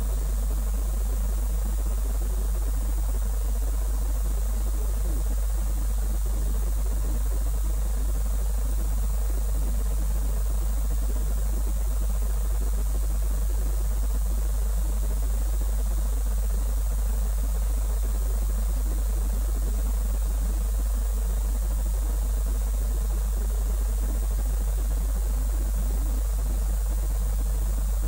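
Steady low hum under a constant hiss, unchanging throughout: background noise of the feed, with no launch or engine sound.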